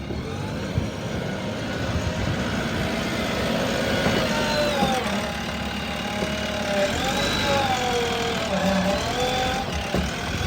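Diesel engine of heavy machinery running steadily. Wavering high tones that rise and fall come in over the second half.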